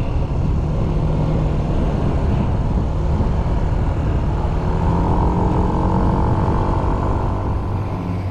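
A motor vehicle running, loud and steady, its pitch falling slightly over the last few seconds.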